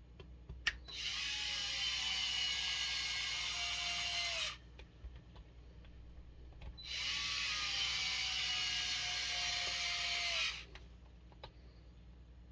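Small power screwdriver driving screws, running twice for about three and a half seconds each, its motor tone slowly falling as it runs.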